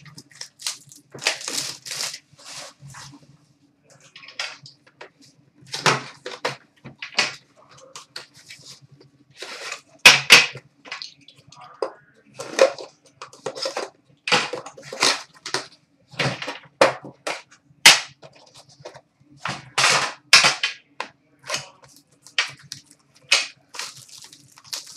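Box cutter slicing and tearing open a sealed cardboard box of hockey cards and its wrapping: a long string of irregular sharp cracks, snaps and rips, the loudest about ten seconds in.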